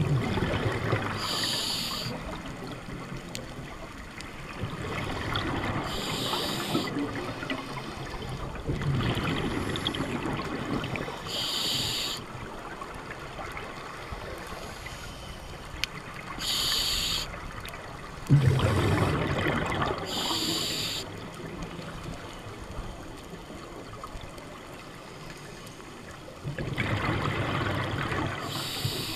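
Scuba diver breathing through a demand regulator underwater: a short hiss as each breath is drawn, about every five seconds, and longer low bubbling rumbles as exhaled air escapes from the regulator.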